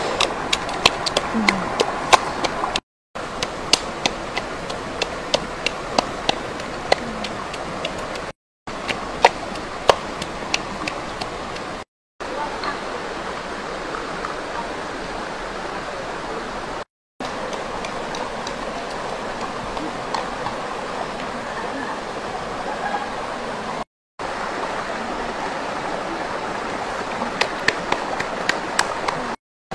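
A rocky forest stream running steadily, with sharp taps on top, first from a stone pounding chilies in a bowl and near the end from a wood fire crackling. The sound drops out briefly several times.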